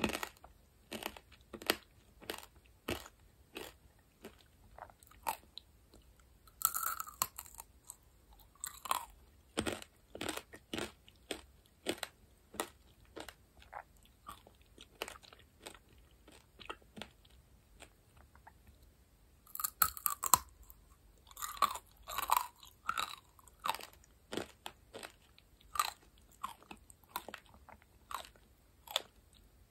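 Tanghulu being chewed: the hard sugar shell cracks and crunches between the teeth in a steady run of sharp crunches. Louder crunching comes about seven seconds in and again around twenty seconds in.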